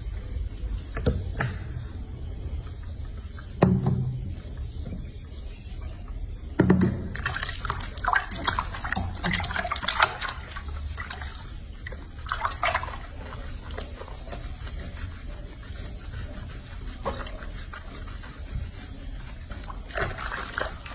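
Water in a bathroom sink splashing and sloshing as hands wash a small animal in it, with scattered drips and small splashes. There are two louder thumps, one about 4 seconds in and one about 7 seconds in.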